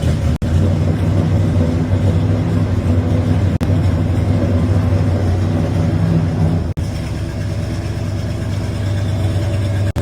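1978 Chevrolet K30's big-block V8 idling through headers and Flowmaster 44 mufflers, just after being started: a steady, loud exhaust note, broken by a few momentary gaps, a little quieter in the second half.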